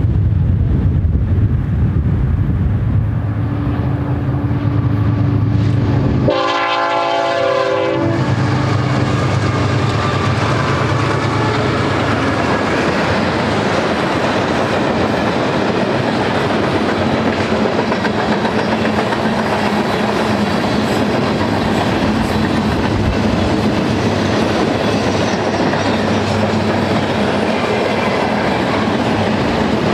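BNSF GE ET44C4 diesel locomotives running past under power, with one horn blast of about a second and a half some six seconds in. The freight cars then roll by with a steady clatter of wheels on rail.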